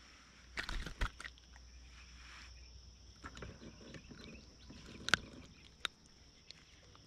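Faint, steady high-pitched insect chirring over a quiet pond, with a few short, sharp clicks and knocks, the loudest about a second in and again about five seconds in.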